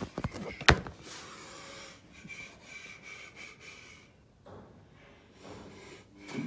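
A few clicks and one sharp knock less than a second in, then faint rustling and close breathing: handling noise from someone filming the machine up close.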